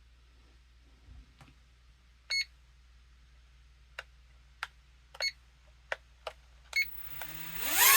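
Three short electronic beeps and several sharp clicks as a SYMA toy RC helicopter and its remote are synced, then near the end the helicopter's small electric rotor motors spin up with a rising whine.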